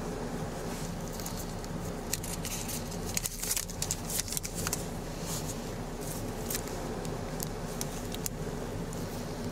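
Rustling and clinking handling noise from a body-worn camera and the officer's gear, with a cluster of louder clatters about three to four and a half seconds in, over a steady low hum.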